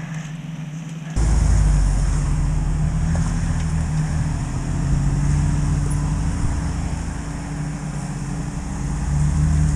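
Off-road 4x4 SUV engine running at low revs as it crawls through a muddy gully, a steady low drone that swells and eases a little. It starts abruptly about a second in.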